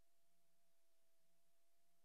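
Near silence: only a faint steady hum and hiss.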